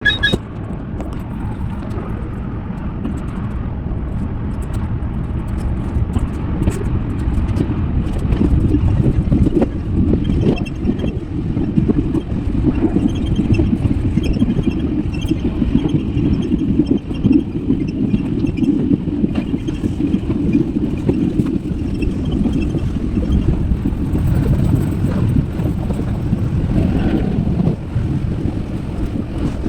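A car on the road: a steady, loud low rumble of road and driving noise.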